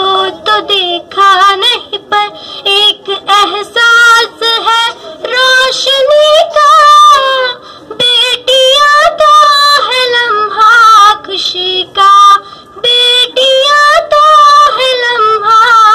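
A boy singing solo into a microphone: a high child's voice holding and bending long notes in phrases, with short breath breaks between them.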